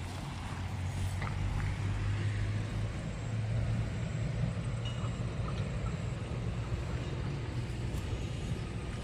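Low, steady rumble of road traffic that swells a couple of seconds in and then holds.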